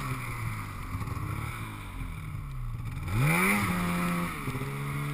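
Polaris snowmobile engine pulling through deep powder, its pitch dipping and rising with the throttle. It revs up sharply about three seconds in, the loudest part, holds for about a second, then eases off.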